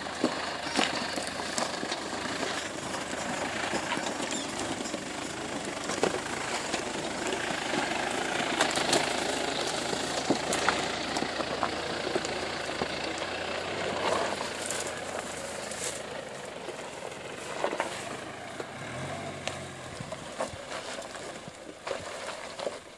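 Off-road 4x4's engine running at low speed while it crawls over rough ground, with scattered sharp cracks and knocks throughout. The sound swells around the middle and eases off toward the end.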